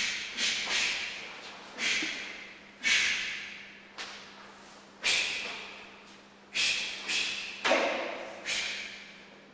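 Karate kata: a sharp sound with each technique, the snap of the gi together with forceful breaths, echoing off the bare walls of a large hall. About a dozen come in uneven groups, each sudden and fading within a second.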